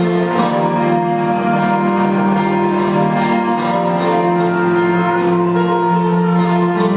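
Instrumental music with long held notes in several layers, changing chord every second or two.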